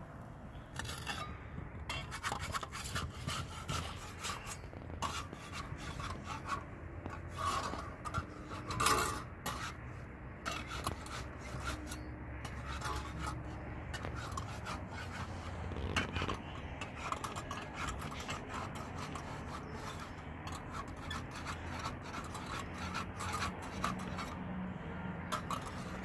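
A thin metal spatula scraping and rubbing against a domed iron bread griddle (saj) and the flatbread on it, in many short, irregular strokes as the bread is worked and turned.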